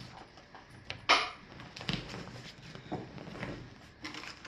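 Handling noises from a rolled canvas swag: scattered rustles and knocks, with one sharp, louder rustle about a second in.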